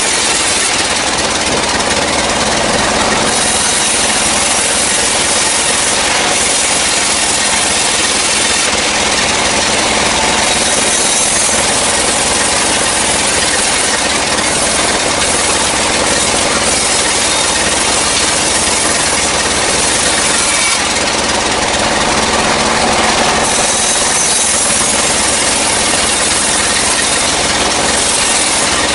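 Sawmill saw running loud and steady while it cuts lengthwise through a dry kruing log fed along its table. The hiss of the cut brightens and eases from time to time.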